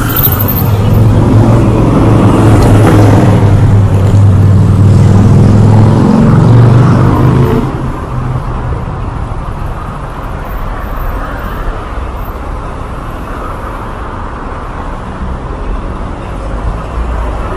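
Busy street traffic with a large vehicle engine running close by, a loud low steady drone for the first seven seconds or so that drops away sharply into the general traffic hum.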